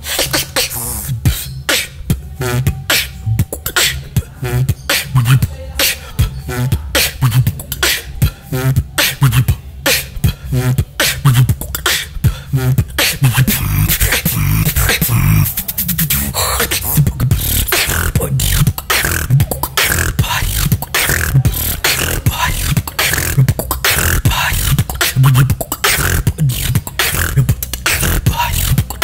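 Solo human beatboxing: vocal bass kicks, clicky snares and hi-hats in a steady beat, with whistled sounds worked into the rhythm. The sound grows denser and more continuous from about halfway through.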